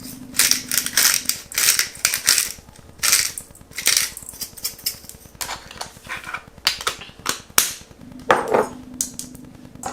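Garlic salt dispensed from its container into a bowl of meatball mixture: irregular dry clicks and rattles, a few strong taps a second among smaller ones.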